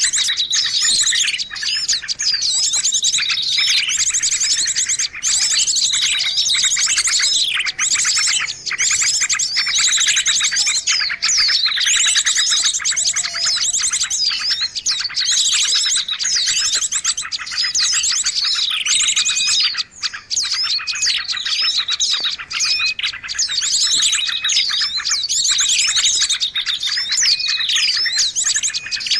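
Dense chorus of many small birds chirping and twittering at once, with rapid high trills and repeated falling calls overlapping without a break. It is a bird-lure (pikat) recording meant to draw small birds in.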